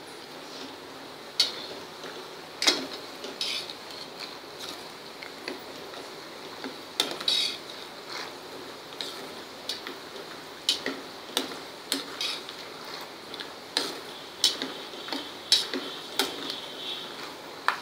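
Steel spoon stirring peanuts frying in oil inside a perforated steel frying basket: irregular metal clinks and scrapes, about one or two a second, over the soft steady sizzle of the oil.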